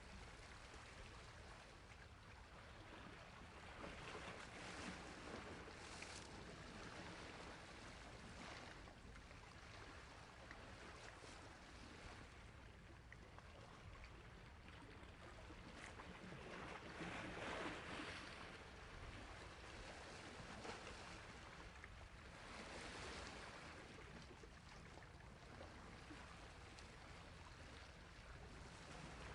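Sea waves washing onto a shore, faint, in slow swells a few seconds apart, the biggest about two-thirds of the way through.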